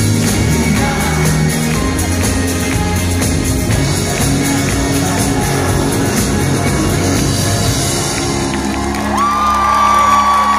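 A pop band playing loudly over a concert PA, heard from within the audience, with shouts and whoops from the crowd. A long, high note is held near the end.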